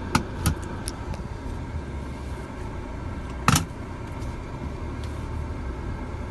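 BMW 320i Cabrio's 2.0-litre petrol engine idling steadily, heard from inside the cabin as a low rumble. A few light clicks come near the start and a louder sharp knock about three and a half seconds in.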